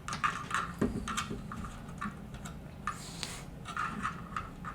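Hands handling small electronics and plastic parts: scattered light clicks, taps and rubs, such as a proto shield being pressed onto an Arduino's header pins.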